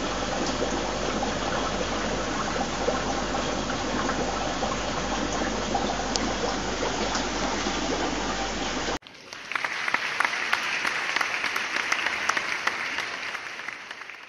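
Steady hiss and low hum of running aquarium equipment, an air pump driving a bubbling sponge filter, with small clicks. About nine seconds in it cuts abruptly to a brighter crackling hiss that fades out near the end.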